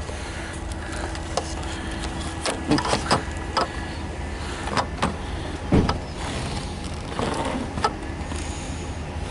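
A series of knocks and clicks, the loudest about six seconds in, over a steady low rumble.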